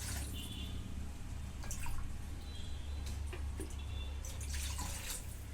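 Water being poured into a non-stick pan of sautéed vegetables, a steady running-water sound.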